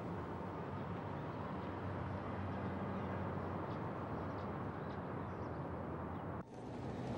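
Steady vehicle engine and traffic noise: a low hum under a rushing haze, with a brief dropout near the end.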